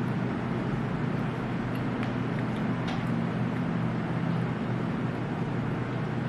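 A steady mechanical hum with a noisy hiss over it, like a motor or fan running, and a few faint clicks.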